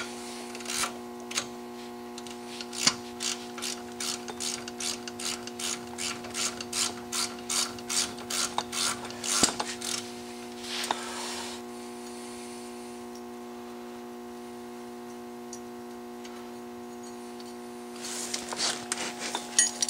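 Hand socket ratchet clicking in quick runs as its handle is swung back and forth, backing off a brake caliper mounting nut. The clicking stops for several seconds midway and starts again near the end, over a steady background hum.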